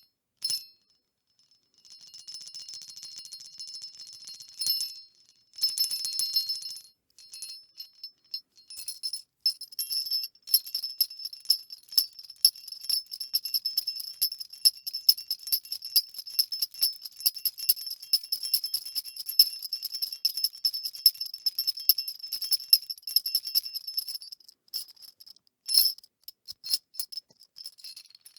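Jingle bells being shaken. First come a sharp single shake and two short bursts, then a long, unbroken, fast jingling, with one more sharp shake near the end.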